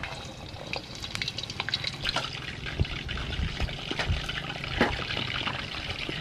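Raw chicken pieces frying in hot oil in a wok: a steady sizzle and crackle with many sharp pops as more pieces are dropped in.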